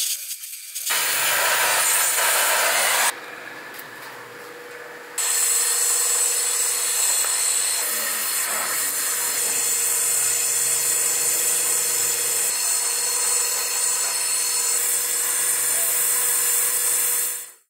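Gas welding torch flame hissing steadily as filler rod is melted into sheet-steel scooter bodywork. It drops quieter for about two seconds after the first few seconds, then runs on and cuts off abruptly near the end.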